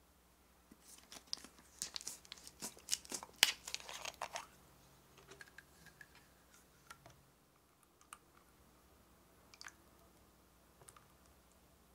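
Thin plastic water bottle crackling and crinkling as it is gripped and turned in the hands for a few seconds, then a scatter of faint clicks as its screw cap is twisted off.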